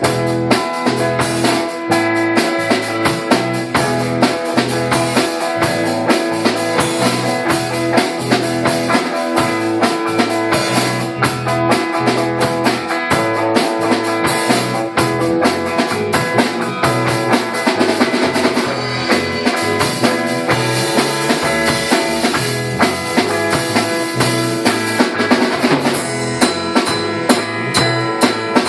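Band music with drum kit and guitar playing steadily, the drums keeping a regular beat.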